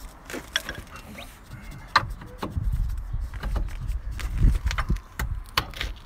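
Front brake caliper of a VW Polo Mk5 being worked back over freshly fitted brake pads: a series of sharp metal clicks and knocks as it seats, over a low rumble of handling.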